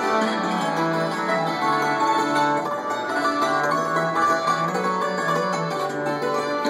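Hammered dulcimer and bowed cello playing a duet: the cello holds long low notes under quick, ringing dulcimer notes.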